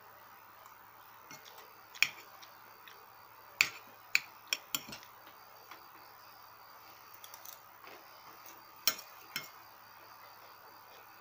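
Scattered sharp clicks and light clinks of small hard objects being handled, a cluster of about five between two and five seconds in and two more near nine seconds, over a faint steady hum.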